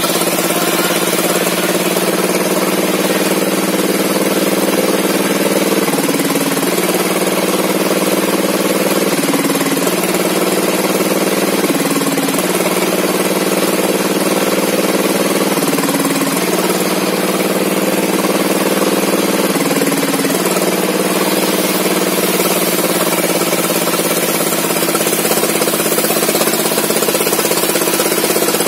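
Small engine of a log saw running steadily, its pitch dipping briefly five times at intervals of about three to four seconds.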